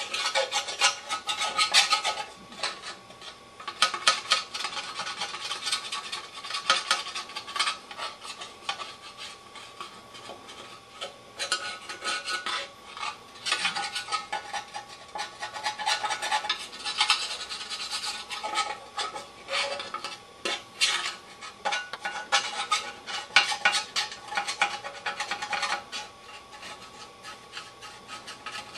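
A screwdriver scraping stuck grime and residue loose from a metal engine part, in quick, irregular rasping strokes with small clinks of metal on metal.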